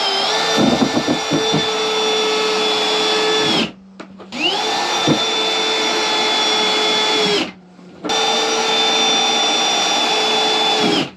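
Cordless drill running in three long bursts of about three seconds each, with short pauses between, as it works into wooden boards. Each burst is a steady whine that spins up at the start and sags slightly just before the trigger is released.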